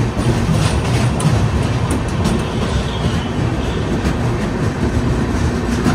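Passenger train wheels rolling on the rails at close range, with coaches moving past on the adjacent track: a steady rumble with irregular clicks over the rail joints.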